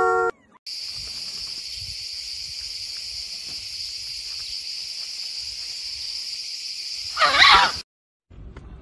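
Steady high-pitched buzzing of insects, such as crickets or cicadas, holding without a break for about seven seconds. Near the end comes a short, loud, wavering animal cry, the loudest sound in the stretch.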